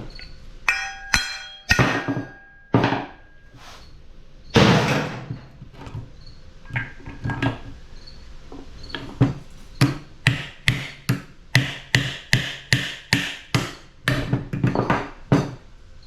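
Hammer blows on metal air-conditioner scrap: scattered clanks and knocks, a few ringing, then a steady run of strikes about two and a half a second over roughly the last six seconds.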